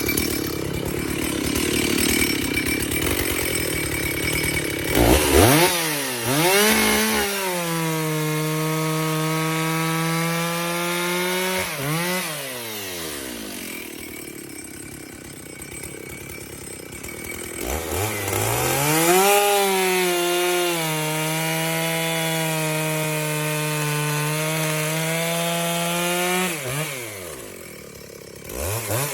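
Chainsaw cutting wood with a freshly hand-sharpened chain: the engine revs up to full throttle and holds a high, steady pitch for several seconds, drops back toward idle, then revs up and holds again.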